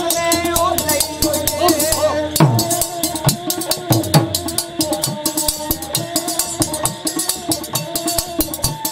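Punjabi folk music: a dhol drum beating, a chimta clashing its jingling metal rings in a fast steady rhythm, and a gourd-bodied stick fiddle hung with bells playing a wavering melody.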